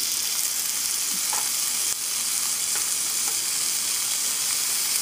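Pieces of marinated chicken sizzling steadily in hot oil and fried tomato-paste masala in a frying pan as they are added with tongs. The sizzle jumps up at the start as the first pieces hit the pan.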